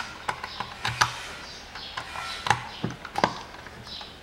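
Hard plastic clicks and knocks from a Range Rover Evoque rear door latch assembly being handled and fitted together, about seven sharp, irregular taps.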